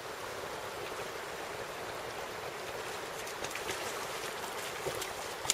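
Steady rush of flowing river water, with a light click right at the end.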